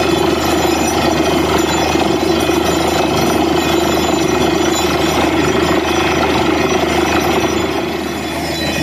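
Truck-mounted borewell drilling rig running steadily at the bore, with its level dipping slightly about eight seconds in.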